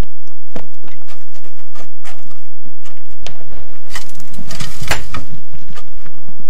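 Irregular knocks and clicks of hands and body on stone as a person prostrates full-length on a rocky slope, with a louder scraping rush about four seconds in that lasts just over a second.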